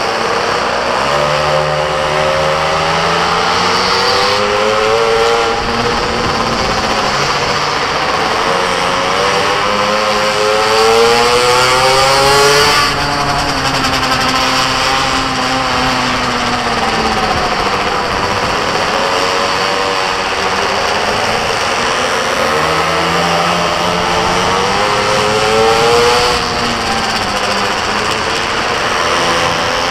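A small racing engine running hard, its pitch climbing in long rev-ups and dropping sharply again and again as it is driven through the laps. The biggest climbs peak about twelve seconds in and again near twenty-six seconds.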